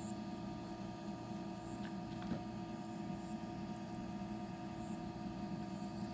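A steady background hum with a few constant tones, and a couple of faint light clicks about two seconds in.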